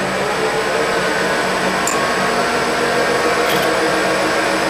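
Bridgeport milling machine running as a 1/4-inch four-flute end mill plunges into steel plate: a steady cutting noise with a faint high whine and a couple of light clicks. The clicks are typical of the end mill not liking plunge cuts.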